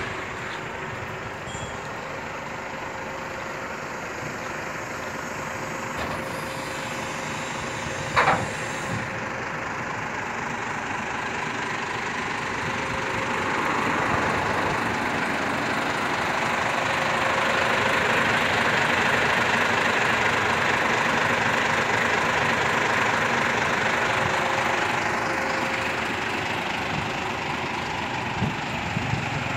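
Heavy diesel truck engine running steadily at idle, growing louder toward the middle, with one brief sharp sound about eight seconds in.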